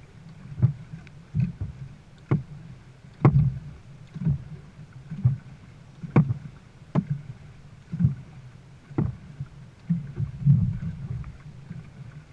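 Dragon boat paddles striking the water in unison, a sharp catch about once a second, over a steady low rumble of water against the hull.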